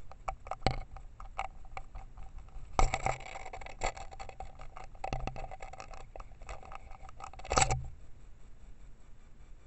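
A tit pecking and scrabbling at the trail camera's housing: a run of sharp taps and scrapes, loudest about three seconds in and again at about seven and a half seconds.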